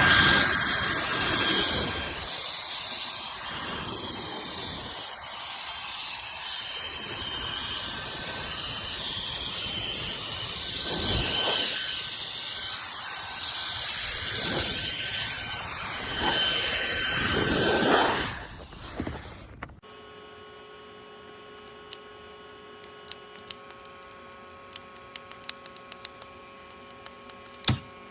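CCV cordless electric air duster (150,000 RPM fan) blowing: rushing air with a high-pitched motor whine, the airflow swelling and easing several times. It cuts off about two-thirds of the way through, leaving a low steady hum and a few faint clicks.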